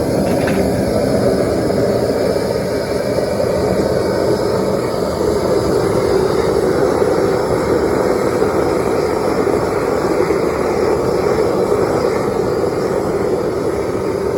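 Propane torch firing into a plaster-and-sand blast furnace: a loud, steady whooshing noise that does not let up.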